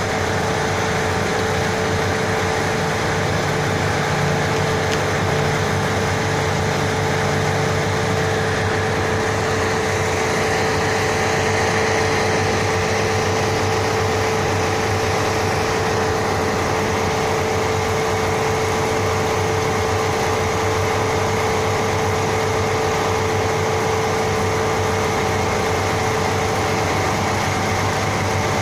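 Steady hum of running machinery, with two constant whining tones over a low drone that do not change.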